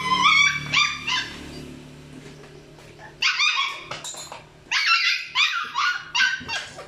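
A dog yipping and barking in short, high-pitched calls: a quick burst at the start, a few more about three seconds in, then a fast run of yips near the end.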